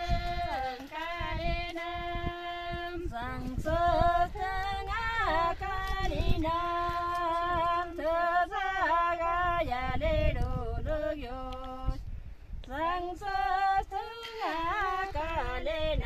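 Women singing an unaccompanied Kinnauri folk song, with long held and gliding notes and a brief pause for breath about twelve seconds in.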